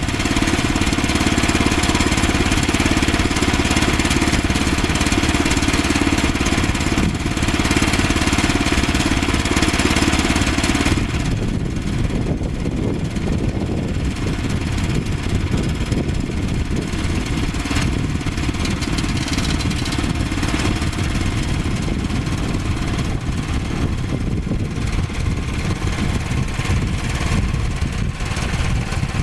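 Small gasoline engine of a Woodland Mills HM122 portable sawmill running steadily under way. About eleven seconds in, the sound changes: the brighter, higher part drops away and a rougher, lower running carries on.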